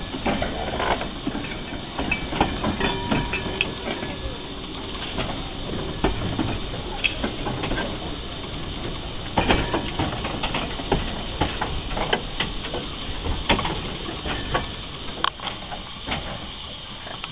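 Small saddle-tank steam locomotive and brake van rolling slowly along the track, with irregular clicks and clanks from the wheels and running gear over a steady rumble.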